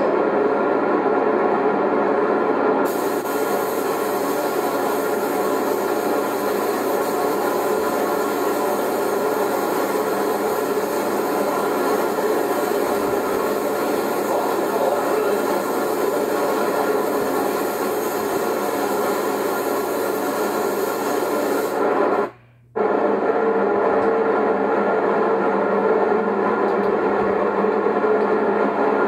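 Paint spray gun hissing over a steady mechanical hum of shop equipment, heard as played back through a TV. The hiss starts about three seconds in and stops shortly before the sound cuts out briefly near the end; the hum carries on after.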